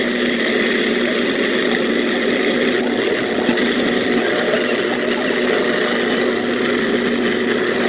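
Bullet-style personal blender running steadily with its cup pressed down, grinding a thick raw chicken mixture into a paste; a constant motor hum with a high whine over it.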